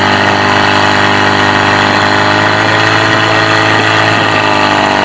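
Portable fire pump engine running hard and steady, a loud continuous drone, while it drives water through the hoses to the spraying jets.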